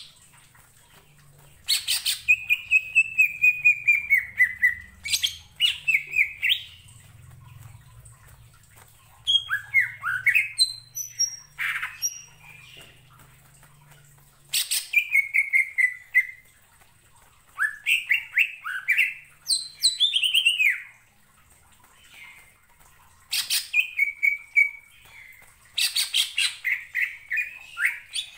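Male greater green leafbird (cucak ijo) singing loud, rapid phrases of quick, falling whistled notes, each phrase a second or three long with short pauses between.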